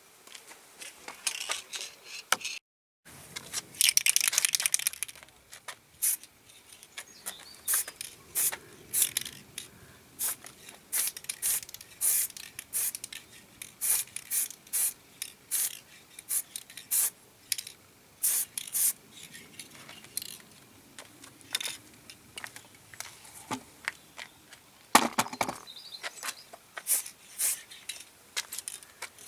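Spray paint going on in many short hissing bursts, with a longer spray about four seconds in: a colour coat on a model car body.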